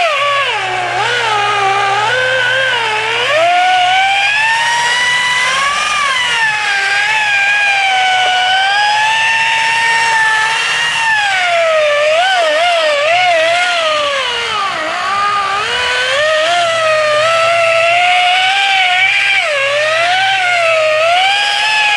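Electric rotary polisher spinning a foam compounding pad against a fiberglass boat hull, cutting the wet-sanded gelcoat with marine compound. Its motor whine wavers up and down in pitch throughout, over a steady low hum.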